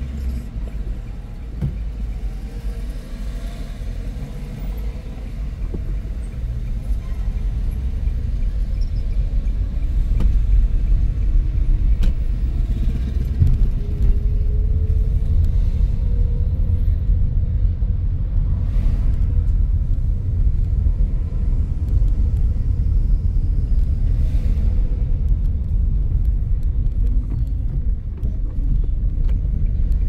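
A car's engine and road noise heard from inside the moving car as a steady low rumble, growing louder about a third of the way in. A faint rising whine is heard near the middle.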